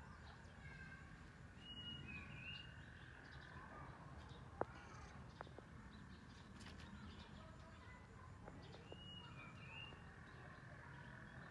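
Faint outdoor ambience in which a bird gives a short two-note call twice, about seven seconds apart, with a sharp click and a softer one in the middle.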